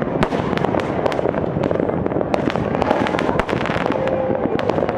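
Fireworks display: many sharp bangs in quick succession, several a second, over a continuous dense rumble.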